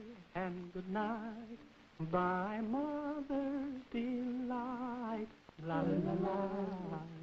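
A cartoon character's voice singing wordlessly in several wavering phrases of held notes with heavy vibrato, some gliding upward, with short breaks between them.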